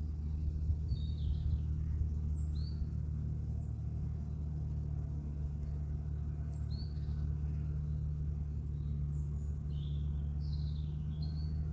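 Outdoor ambience of small birds giving short high chirps now and then over a steady low mechanical hum.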